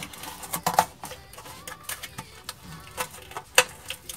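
Taped cardboard box being torn and pried open by hand: irregular crackles and snaps of cardboard and packing tape, with a sharp snap about three and a half seconds in.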